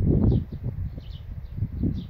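Wind buffeting the microphone in gusts, strongest in the first half second and again near the end, with small birds chirping faintly in the background.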